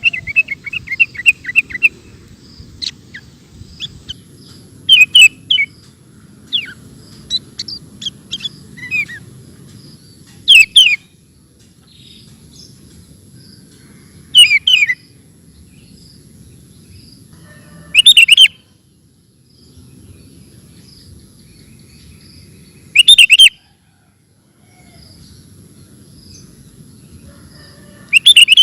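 Sooty-headed bulbul (kutilang) singing: a rapid trill at the start, then scattered chirps and short, loud phrases repeated about every four to five seconds.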